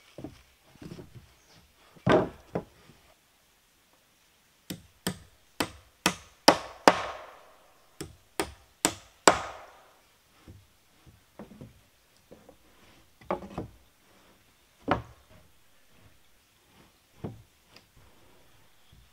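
Hammer driving nails into pallet boards on a wooden wall: a run of about a dozen sharp blows, two to three a second, about five seconds in, with a few scattered wooden knocks and thumps before and after as boards are handled.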